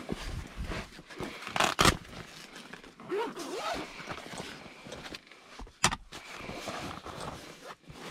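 Soft rifle case being zipped open and handled, the fabric rustling, with two loud short scrapes just before two seconds in and a single sharp snap about six seconds in.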